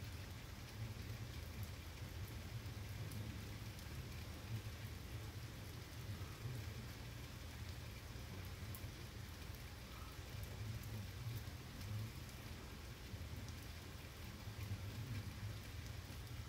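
Heavy rain falling steadily on trees and parked vehicles: an even hiss with scattered sharp drop ticks and a low rumble underneath.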